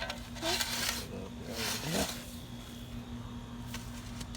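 A digging tool scraping and scooping soil: a sharp knock, then two gritty scrapes about a second apart as earth is dug up and moved.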